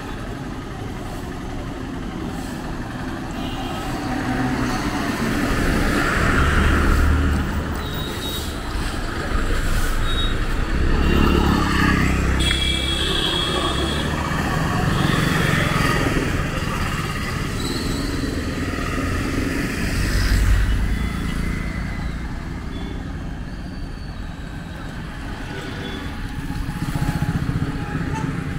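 Road traffic: motor vehicles, among them motorcycles and auto-rickshaws, passing one after another, each swelling and fading. The loudest passes come about six, eleven and twenty seconds in.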